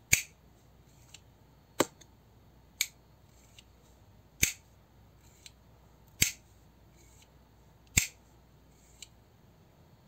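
Automatic knife's spring-loaded blade mechanism clicking as the blade is fired and closed over and over: six sharp metallic clicks about one and a half to two seconds apart, with fainter clicks between them.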